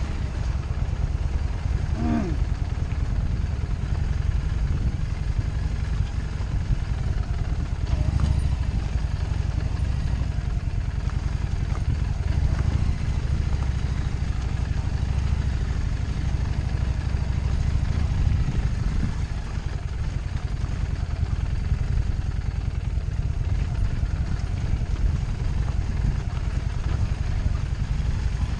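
Harley-Davidson Street 750's V-twin engine running steadily at low speed as the motorcycle is ridden over a rough, rutted dirt track, a low rumble.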